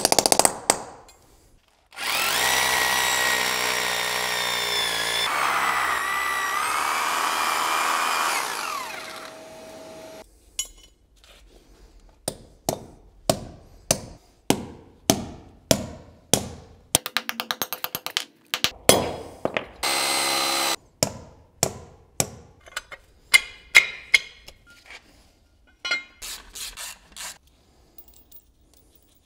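An electric drill boring holes into a concrete floor for about six seconds, its pitch falling as it winds down. Then a long run of sharp blows, about one a second, as anchor bolts are set in the holes, broken by a quick rapid rattle and a short burst of the power tool.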